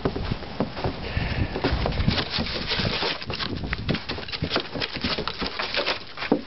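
Paws and boots crunching and scuffing in a thin layer of fresh snow on a wooden deck, in irregular steps, while a dog sniffs at the snow.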